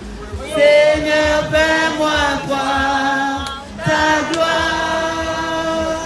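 A woman singing a French worship song into a handheld microphone in long held notes, with a group of voices singing along; the singing breaks briefly a little past the middle.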